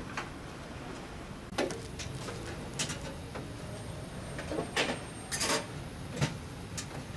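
Irregular sharp clinks and knocks of metal parts being handled on a compressor's sheet-metal cabinet, with a small cluster of them about five seconds in.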